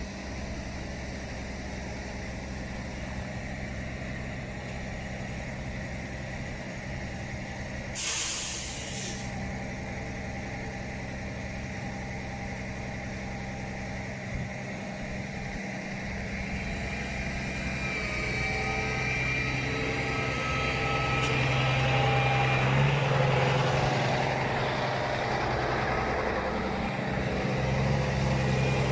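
Heavy truck's diesel engine running steadily, with a short burst of hiss about eight seconds in. From about eighteen seconds the engine gets louder and a steady whine joins it.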